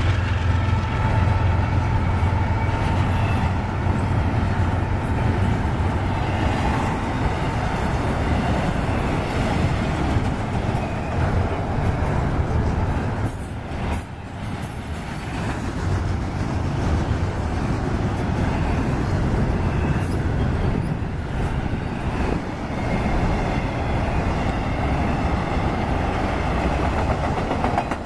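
Freight train rolling past at close range. The trailing EMD SD70ACe diesel locomotive's engine is heard in the first few seconds. Then comes a steady rumble of steel wheels on the rails as double-stack container and trailer cars go by, with a brief slightly quieter spell about halfway through.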